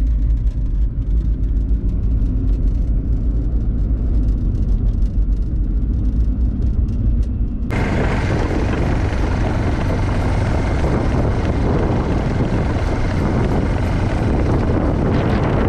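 Vehicle engine running, first a low, muffled rumble. About eight seconds in it switches abruptly to a louder, rougher engine noise with a broad hiss.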